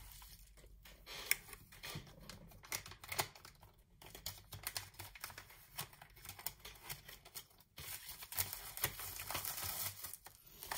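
Faint, irregular crinkling and small clicks of a paper mailer envelope and plastic zip bag being handled.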